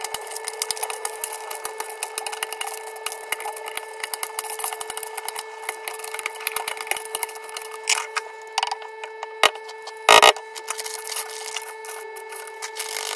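Knife cutting cashews and raisins: a quick, uneven run of small taps and scrapes, with one louder knock about ten seconds in. A steady hum runs underneath.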